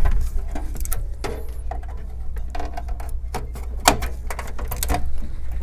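Graphics card handled and fitted into a PC's PCIe slot: scattered knocks and clicks of the card against the steel case and slot, the sharpest about four seconds in, over a steady low hum.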